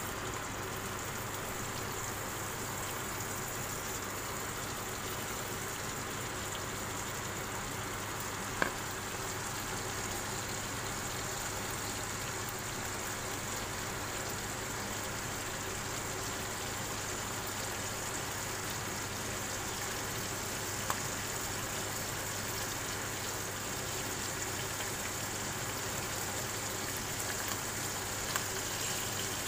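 Salmon fillets sizzling steadily in melted butter in a nonstick wok, with two brief clicks.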